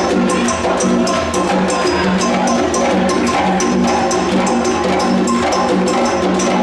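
West African percussion ensemble playing a fast, steady rhythm: sharp, clicking wood-block-like strokes over pitched drums.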